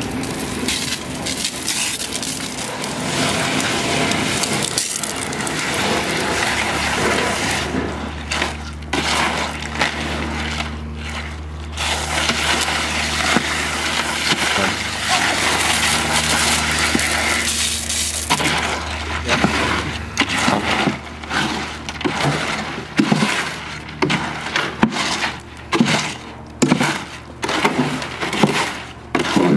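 Water-fed hydro hoe spraying into gritty concrete mix in a wheelbarrow as it is pushed and pulled through: a continuous hiss of water and grinding scrape of gravel. In the later part this breaks into separate scraping strokes of the hoe, more than one a second.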